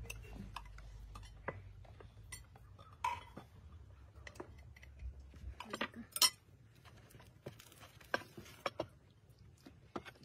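Cutlery and dishes clinking: scattered light knocks and clinks, the loudest about six seconds in, over a low rumble that stops about halfway through.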